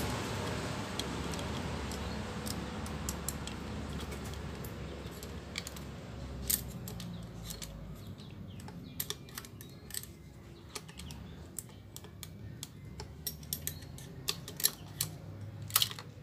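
Light metallic clicks and taps of a screwdriver and small parts against the cylinder head of a Yamaha Jupiter MX engine as the cam chain tensioner is being released. The clicks come irregularly and grow more frequent in the second half, over a low rumble that fades out by about halfway.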